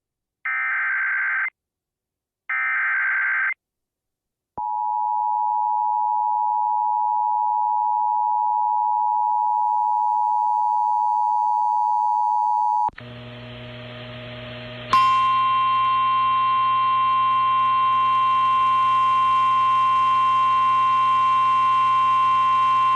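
Emergency Alert System tones: two screeching data bursts of the alert header, about a second each with a second's gap, then the steady two-note attention signal held for about eight seconds. About thirteen seconds in it cuts to a noisy hum, and about two seconds later a single steady alarm tone starts over the hum and holds to the end.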